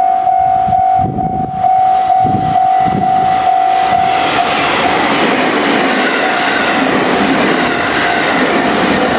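Japanese level-crossing alarm ringing in a steady, even ding about three times a second, while a JR 313 series electric train approaches with its wheels clacking over the rail joints. About four seconds in the train passes close by and its loud rushing rattle drowns out the alarm.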